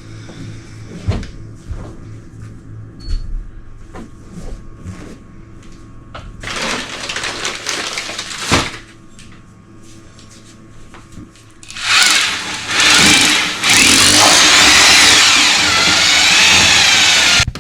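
Scattered knocks and clicks, then a handheld power tool running loudly for several seconds in the second half, its pitch wavering.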